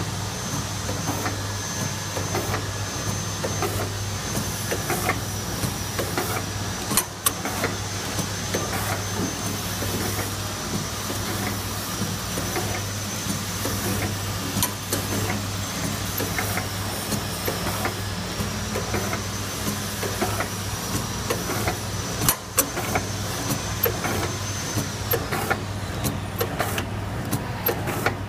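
Vertical granule packing machine running: a steady low hum with a thin high whine, and sharp clicks and knocks from its mechanism now and then. The high whine stops about three seconds before the end.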